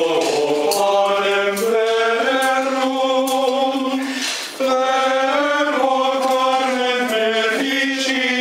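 Men's voices singing a slow, chant-like processional hymn in unison, on long held notes that move step by step, with a short pause for breath about four and a half seconds in.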